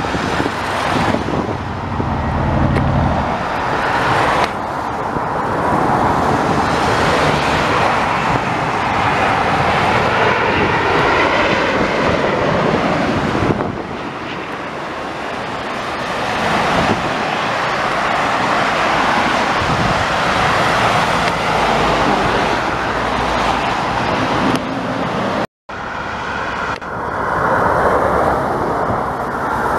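A British Airways Boeing 787's Rolls-Royce Trent 1000 jet engines passing low overhead on final approach: a heavy rushing roar with a wavering whine that builds, peaks as the jet goes over, and eases away. The sound breaks off abruptly for a moment near the end.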